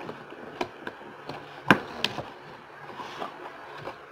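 Cardboard box being opened by hand, the lid lifted off with a few sharp knocks and taps of cardboard, the loudest a little before halfway through.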